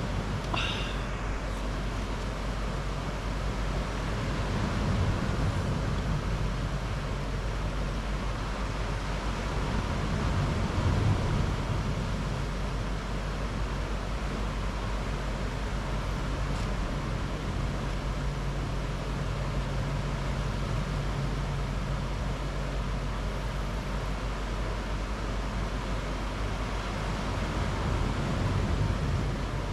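Steady wash of surf on a pebble beach, swelling slightly now and then, with a faint low hum underneath.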